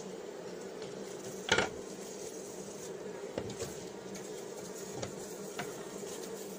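Honeybees buzzing steadily at an opened wooden hive, with one sharp wooden knock about a second and a half in as a loose cover board is set down on the hive top, and a few light taps of the boards later.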